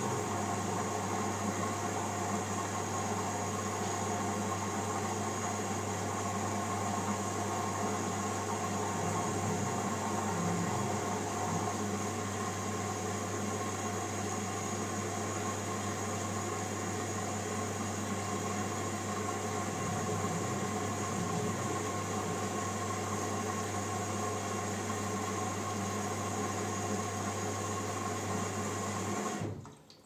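LG Direct Drive front-loading washing machine running a wash cycle: a steady hum and whir of the direct-drive motor turning the drum with laundry inside. It stops abruptly near the end as the drum comes to rest.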